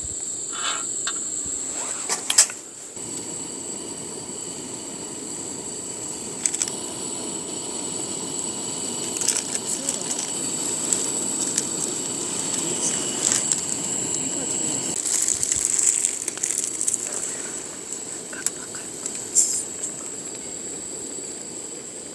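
Ramen boiling in a stainless-steel pan on a gas camp burner: a steady bubbling hiss with a few crackles. There is a sharp clink about two seconds in, and the boiling eases off about fifteen seconds in.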